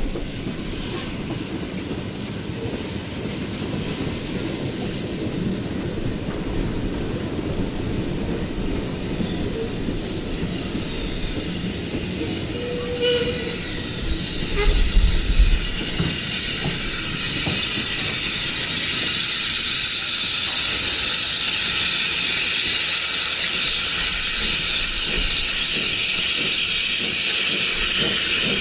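Steam train of vintage coaches passing slowly on a curve: wheels clicking and thumping over the rail joints, with a brief wheel squeal. In the second half the saddle tank locomotive draws level and its steam hiss grows loud and steady.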